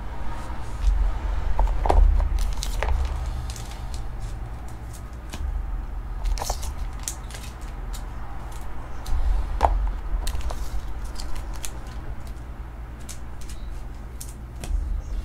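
Scattered light clicks and taps of trading cards and small items being handled on a tabletop, over a steady low hum.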